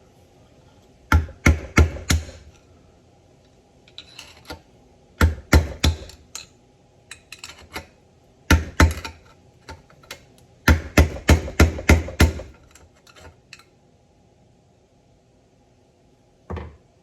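Hammer tapping on metal in four short bursts of quick strikes, several to a burst, with pauses between, and a single knock near the end.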